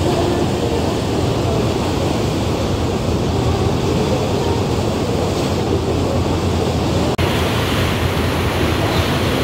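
Steady noise of a boat under way: a low rumble mixed with wind on the microphone and rushing water. About seven seconds in the sound cuts abruptly to a brighter hiss of churning wake water along the hull.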